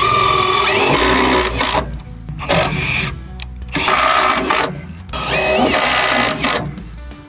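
Cordless drill/driver running in four spells, driving screws down into a trailer's top deck, its motor whining, with upbeat rock music underneath.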